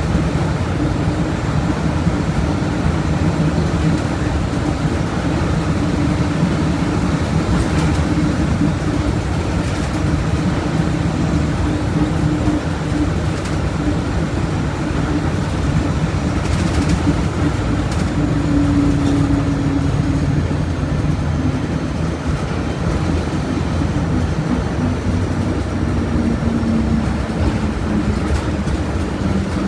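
Volkswagen Volksbus 17.230 OD bus's diesel engine running steadily with a loud drone and rumble, its note dropping somewhat near the end.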